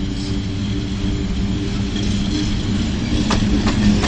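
PKP ET22 electric freight locomotive approaching and passing at the head of a train of open coal wagons: a steady hum over a low rumble, growing louder as it nears, with a couple of sharp clicks near the end.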